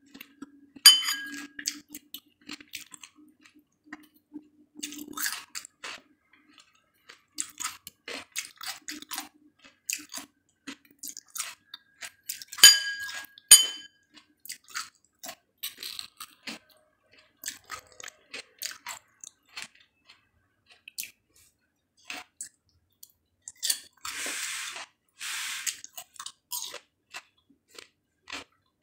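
Close-up chewing and wet crunching of firm, juicy honeydew melon chunks. A metal fork clinks against a ceramic plate with a ringing ping about a second in and twice around halfway. Two short hissing noises come a few seconds before the end.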